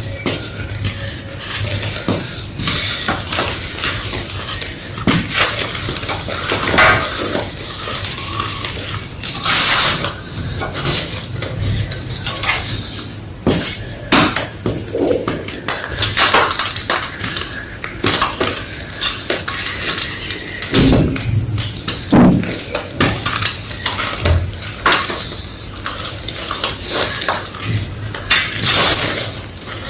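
Circle-shaped pieces of gym chalk crunching and crumbling as they are crushed, a dense, irregular run of sharp crackles and snaps.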